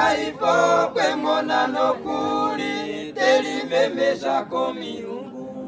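Several voices singing a song together without instruments, in Oshiwambo; it comes in abruptly at full level.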